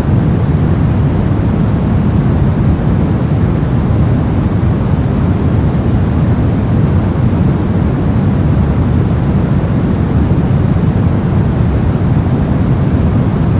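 Brown noise: a steady, deep rumbling hiss with most of its weight in the bass, unchanging throughout.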